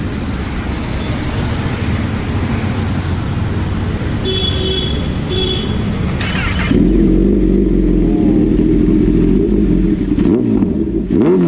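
Kawasaki ZX10R's inline-four through an Arrow slip-on exhaust, loud, running at idle. About two-thirds in it is revved up and held at a steady higher note, then blipped up and down near the end.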